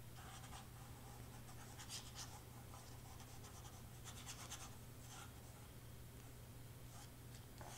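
Faint rustling and light scratching of cardstock layers being handled and set in place, a few soft scrapes about two seconds in and again around four to five seconds, over a steady low hum.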